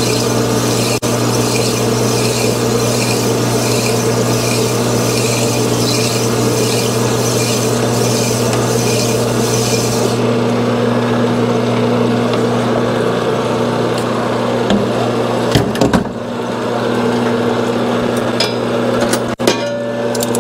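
Sunnen honing machine running with a steady motor hum while a 1979 Suzuki TS125 cylinder bore is stroked back and forth over the spinning hone stones, making a rhythmic gritty rasp. About ten seconds in the rasp stops and only the motor hum is left. Near the end come a few sharp knocks as the cylinder is handled and taken off the hone.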